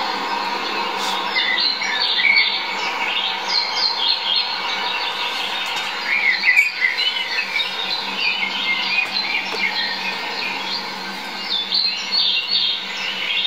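Wild birds chirping and singing, many short high calls overlapping each other, over a steady faint hum.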